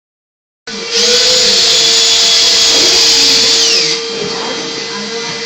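Power drill starting up about a second in, running at high speed with a high whine for nearly three seconds, then winding down with a falling pitch; a steady hum continues underneath.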